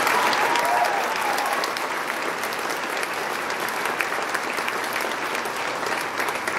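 Audience applauding, loudest in the first second and then holding steady.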